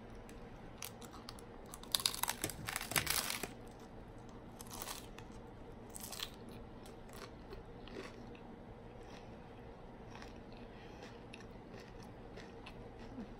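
Crispy hard taco shell, filled with ground beef, being bitten and chewed: a burst of loud crackling crunches about two seconds in, then scattered softer crunches as it is chewed.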